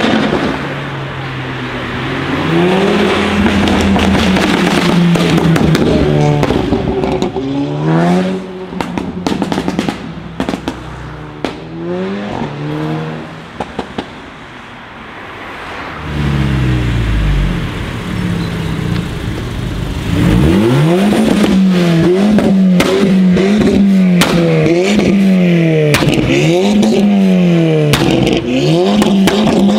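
Volkswagen Scirocco's engine and exhaust as it is revved again and again in short blips, the pitch rising and falling over and over. Sharp pops and crackles come from the exhaust between revs. The revving is busiest in the last third.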